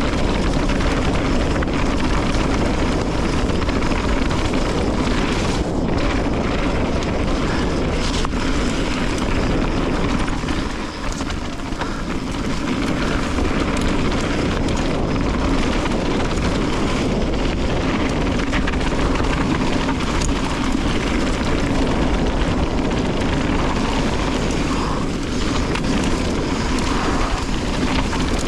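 Steady rushing and rumbling of a mountain bike rolling over a rough dirt trail, with wind buffeting the camera microphone; the noise eases briefly about a third of the way in.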